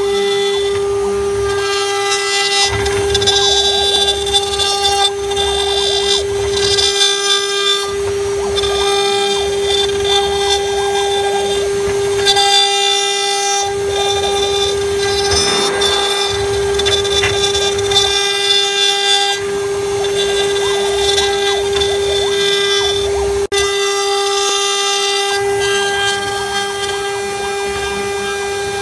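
CNC router spindle whining at a steady high pitch as its bit carves a wooden column turning on the rotary fourth axis. Rough cutting noise rises and falls every few seconds as the bit moves into and out of the wood.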